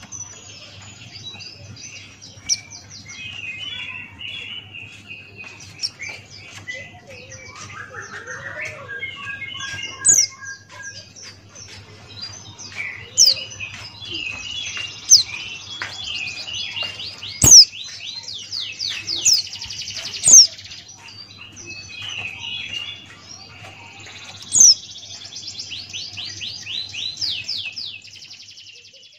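Pleci Buxtoni white-eye singing continuously: fast, high twittering and trills broken by several loud, sharp downward-sweeping whistles. A faint steady low hum runs underneath.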